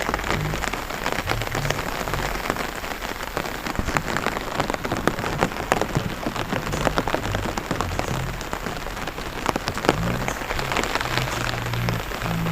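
Rain falling on a flooded rice paddy: a dense, steady patter of drops with many sharper individual splashes.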